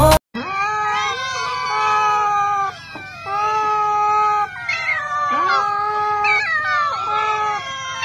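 Many cats meowing at once: long, overlapping meows that glide up and down in pitch, one call after another.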